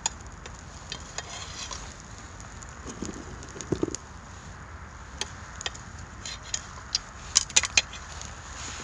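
Pine cones burning in a clay shichirin grill, crackling with scattered sharp pops and clicks, the loudest in a quick cluster near the end. A dull knock a little before halfway.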